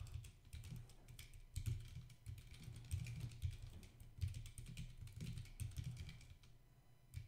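Typing on a computer keyboard: quick runs of keystroke clicks that thin out near the end.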